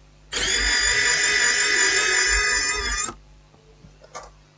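Small electric screwdriver motor running steadily for about three seconds, driving out a screw from a laptop case, with a light click near the end.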